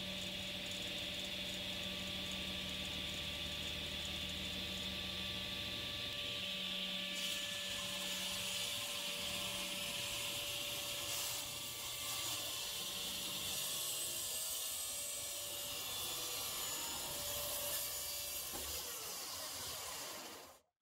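Tablesaw running at steady speed while a tenon jig is slid along the table past the spinning blade. The sound cuts off suddenly near the end.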